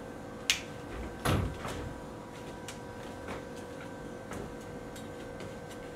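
Wooden chairs and stage props being picked up, moved and set down on a wooden stage floor. A sharp knock comes about half a second in, a heavier bump and scrape just after a second, and then scattered light knocks and clicks follow.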